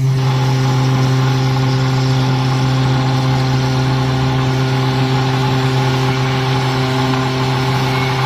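CNC router spindle running at steady speed while its end mill cuts 4 mm aluminum sheet: a steady machine hum with overtones over a rough cutting noise.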